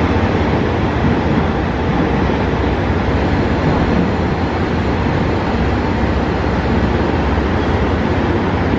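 JR Shikoku 2700 series diesel railcar standing at the platform with its diesel engines idling: a steady, even running noise, heavy in the low range.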